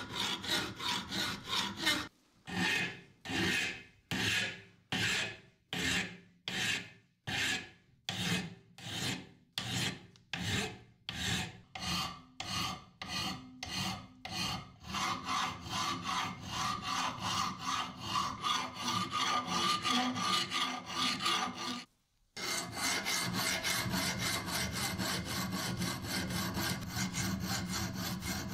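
Flat hand file rasping across the steel blade of an old screwdriver held in a vise, reshaping the rusty metal. Separate push strokes come about two a second at first, then faster and closer together from about halfway, with a short break about two-thirds through.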